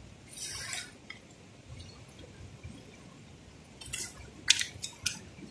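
Wet splashes and slaps from a wet cast net and a fish being handled on wet rock: a short splash about half a second in, then a few sharp wet slaps near the end.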